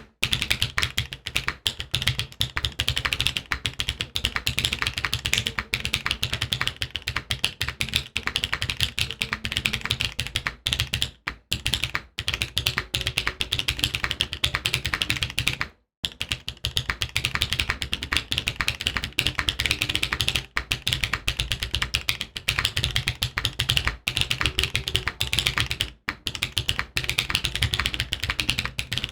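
Fast, continuous typing on a Midway60 SE mechanical keyboard fitted with stock BSUN Kiki blue switches in a full aluminum plate, with GMK Beta keycaps. Dense key clacks break off for a moment about halfway through, then resume.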